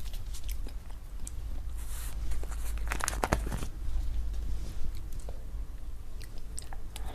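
Close-miked eating: chewing and biting with scattered crisp clicks and a cluster of louder crunches about three seconds in, over a steady low hum.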